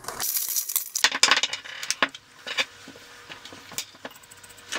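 A brief rustle of packaging, then a run of small metal clicks and clinks as loose bolts and nuts are handled against a brass flange valve.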